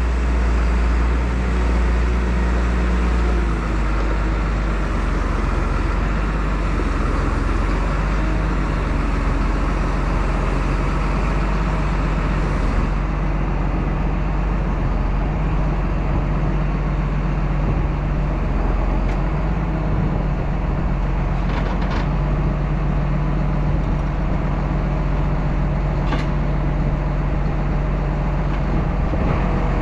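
Farm tractor's diesel engine running steadily while it is hooked up to a ripper, its note shifting a few seconds in. Two sharp knocks come later on.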